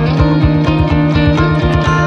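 Background music with a fast, steady beat and sustained melodic tones.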